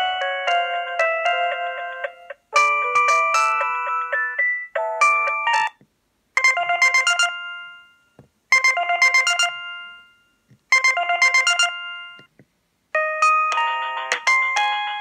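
Samsung SGH-C450 ringtones previewing from the phone's speaker while the list is scrolled. A tune breaks off about two seconds in and another melody follows. Then a short chiming phrase plays three times with pauses between, and a new tune starts near the end.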